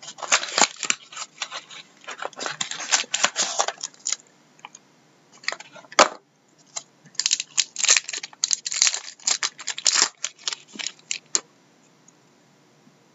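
Trading-card pack wrappers being torn open and crinkled by hand, in bursts of crackling rustle. There is a single sharp click about six seconds in, and the rustling stops shortly before the end.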